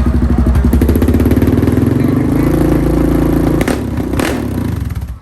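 Suzuki KingQuad 750's single-cylinder engine running loud through a freshly fitted HMF slip-on exhaust, the revs rising about two seconds in and falling back near four seconds, with two sharp snaps as it comes off the throttle.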